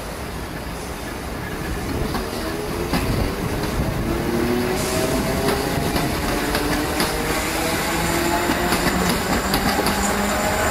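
Third-rail electric multiple unit accelerating, its nose-suspended traction motors giving a whine that climbs steadily in pitch and grows louder. Wheels click over the rail joints.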